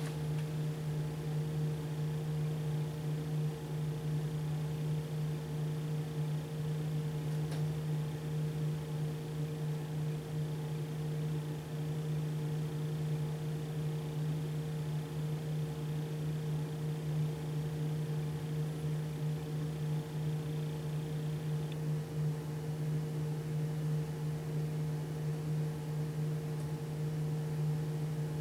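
A steady low hum with a constant pitch and an even background hiss.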